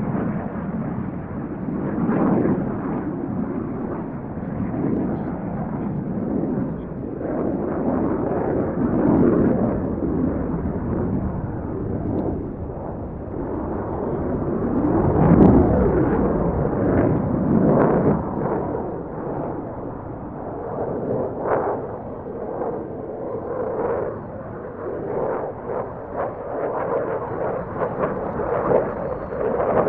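Distant jet noise from a Dassault Rafale C's twin Snecma M88 turbofans, a deep rumble that swells and fades in waves as the fighter manoeuvres, loudest about halfway through.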